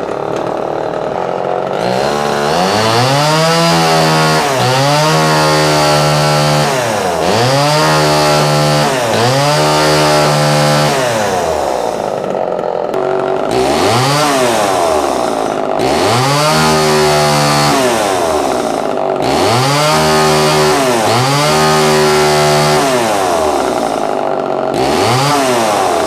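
Homelite Super XL Automatic's 58cc two-stroke chainsaw engine running just after starting. It is throttled up to high speed and held there about eight times, dropping back to idle between, with longer idles near the middle and near the end.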